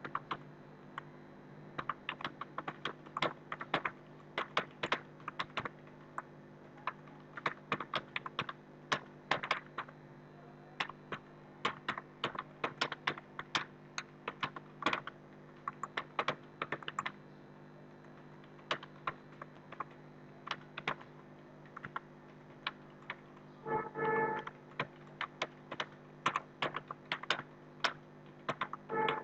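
Fast typing on a computer keyboard: keystrokes in uneven runs with short pauses, over a steady low hum. Twice near the end a brief pitched tone sounds.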